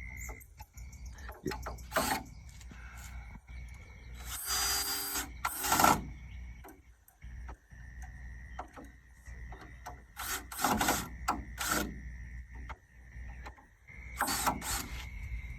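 Power drill driving screws in several short bursts of about a second each, over a steady high insect chirr.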